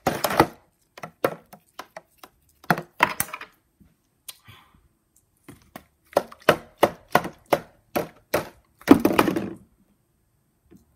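Repeated sharp knocks and taps on a clear food storage container as hands bang and pry at its stuck lid, with a quick run of taps later on. Near the end there is a longer clatter as the container is jostled and the dried banana chips inside rattle.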